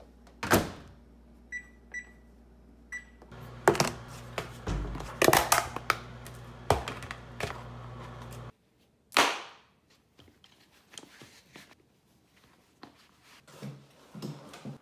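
Microwave oven: the door shuts with a thunk, the keypad beeps three times, and the oven starts up with a steady low hum, with clatter over it, until it cuts off suddenly. Scattered knocks and rustles of handling follow.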